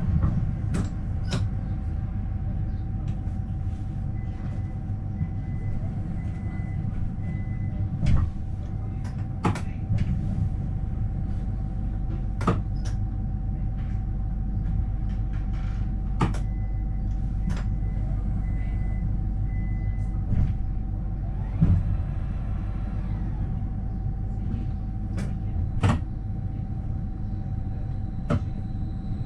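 AVG Stadtbahn light-rail car standing at a stop: its equipment runs with a steady low hum and a constant whining tone. Sharp clicks and knocks come every few seconds.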